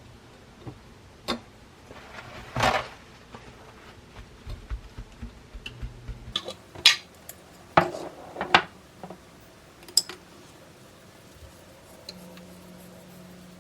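Kitchenware being handled: a scattered series of sharp clinks and knocks of dishes, pots and utensils, with one short scrape, then a faint steady hum near the end.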